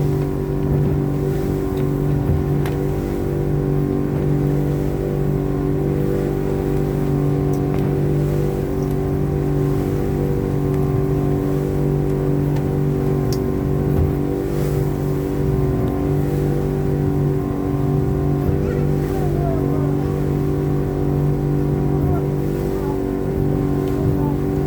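Outboard motor of a river ferry speedboat running steadily under way, a constant engine drone that holds its pitch throughout.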